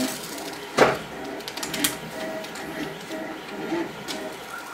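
A sheet of backing is peeled and smoothed down by hand: one sharp knock about a second in, then light crinkling and rubbing. Underneath runs a 3D printer's stepper motors, chirping and whirring in short repeating tones with a rising glide near the end.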